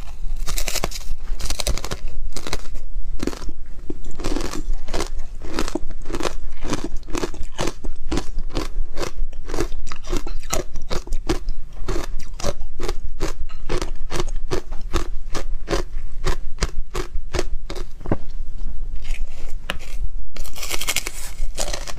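Hard ice coated in matcha powder being bitten and chewed: a continuous run of sharp, loud crunches, several a second.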